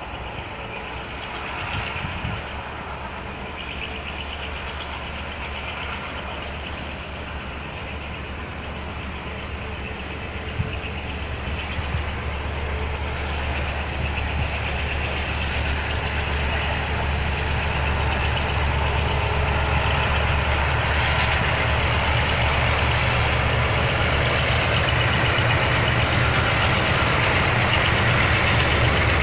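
Diesel freight locomotive approaching, its engine's low steady drone growing louder from about ten seconds in, with a rushing noise that builds above it.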